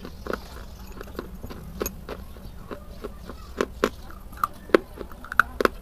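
Sticks of school chalk being bitten and chewed close to the microphone: sharp, irregular crunches and snaps, the loudest in the second half, over a steady low hum.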